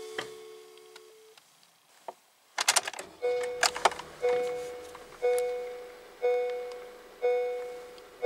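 Honda N-VAN's seatbelt reminder chime, sounding about once a second and fading away after each ring. It comes on just after a quick run of clicks as the ignition is switched on, with the engine not running. A held tone fades out about a second in.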